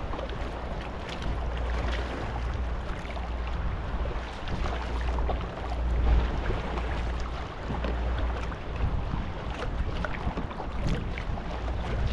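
Stellar S18 G2 sea kayak being paddled on calm sea: the blades dip and splash in turn, and water laps and trickles along the hull. A low wind rumble sits on the microphone throughout.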